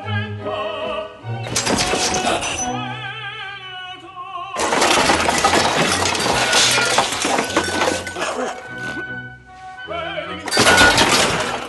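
Operatic singing with orchestra, over fight sound effects: a crash of breaking about a second and a half in, a long run of smashing and shattering from about four and a half to eight and a half seconds in, and another loud crash near the end.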